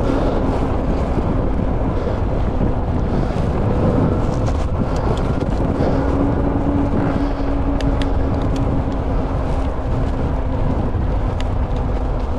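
Wind rushing over an action-camera microphone during an e-bike ride, with a steady low hum and rumble underneath and a few faint ticks.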